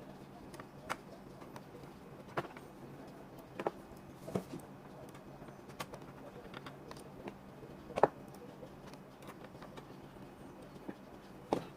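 Scattered light clicks and taps of small computer hardware being handled, at irregular intervals with a sharper knock about eight seconds in, over a faint steady low hum.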